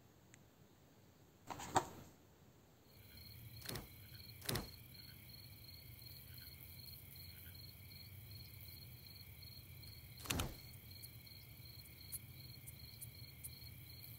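Crickets chirping in a steady, pulsing trill that starts about three seconds in. A few short swishes sound over it; the loudest is about two seconds in, before the crickets begin.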